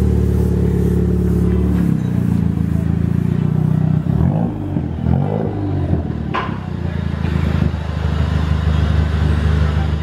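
Ford Fiesta ST's turbocharged four-cylinder running through a loud Cobra Venom aftermarket exhaust: a steady idle, with a few short revs about four to six seconds in, and a sharp click just after.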